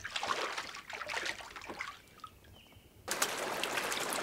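River otters splashing in lake water as they wrestle and dive, in short irregular splashes, followed by a brief lull. About three seconds in, a small mountain stream rushing over rocks cuts in abruptly with a steady sound.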